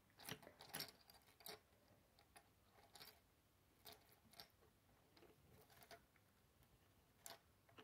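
Faint, irregular clicks and taps of plastic Lego pieces as a minifigure on its brick base is handled and turned on a wooden table.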